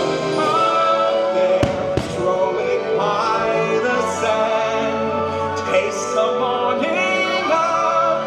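Fireworks show soundtrack: orchestral music with singing, with a couple of sharp firework bangs about a second and a half and two seconds in.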